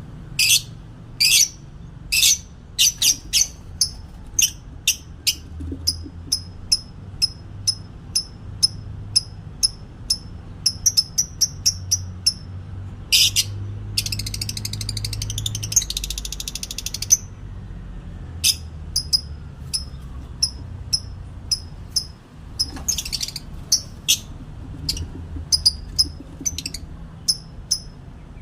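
A bird calling over and over: short high chirps about one or two a second, with quicker runs of notes here and there, and a harsher buzzy stretch about halfway through and again briefly near the end.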